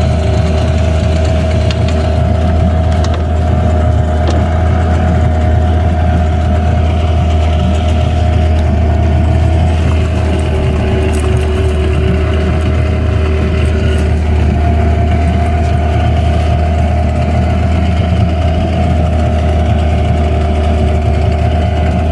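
Boat motor running steadily at constant speed: a loud, even low hum with a steady whine above it.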